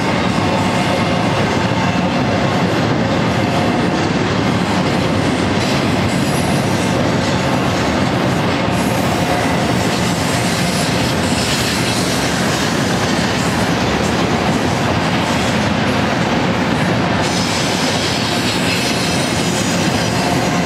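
Double-stack container well cars of a freight train rolling steadily past, a continuous noise of steel wheels on rail.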